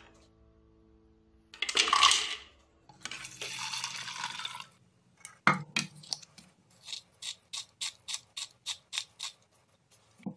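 Water poured into a blender jar over almonds, a steady rush lasting about two seconds, followed by a knock. Then comes a run of about a dozen quick, even rasping strokes, about four a second, as salt is added.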